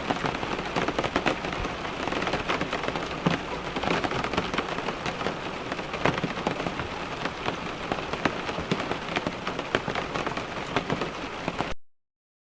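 Steady rain pattering on a car window, dense and even with many distinct drop ticks; it cuts off suddenly near the end.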